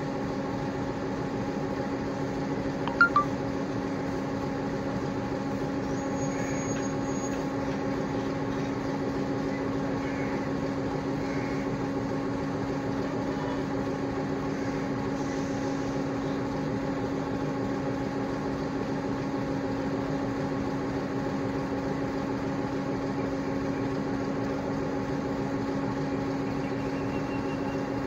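Sri Lanka Railways Class M4 diesel locomotive idling steadily with an even, pitched engine hum while the train stands halted. Two short sharp knocks sound about three seconds in.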